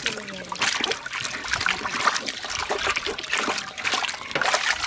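Water splashing and trickling as hands rub and turn whole bottle gourds in a large pot of water: many irregular small splashes.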